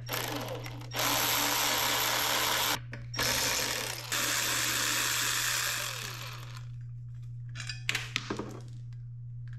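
Cordless power driver running bolts in through a socket extension, tightening the pannier bracket bolts. It runs in three bursts, the last and longest tapering off, and a few light clicks follow near the end.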